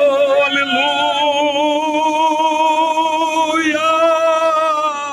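A man's voice holding one long, sung 'oh' with vibrato, its pitch stepping slightly twice before it ends near the close.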